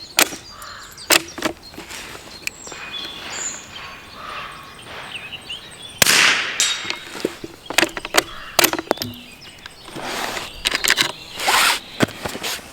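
A Norinco .22 LR K98-pattern bolt-action rifle at the range: one sharp shot about six seconds in, among metallic clicks and knocks of the bolt being worked and the rifle being handled. Birds chirp faintly.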